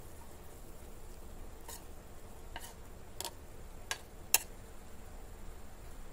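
Five light clinks of a steel bowl against the rim of an aluminium tin as dhokla batter is poured and scraped out, the last clink, about four seconds in, the loudest, over a faint steady hiss.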